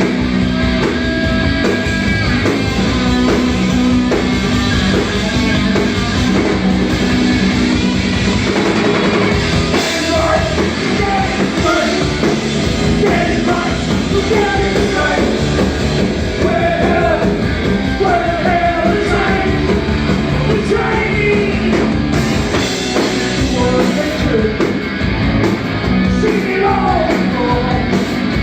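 A rock band playing loud, with electric guitar and drums and a voice singing over them.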